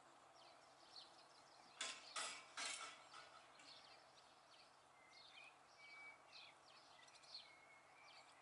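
Faint birdsong, many short high chirps with a few brief whistled notes, and three sharp clicks in quick succession about two seconds in.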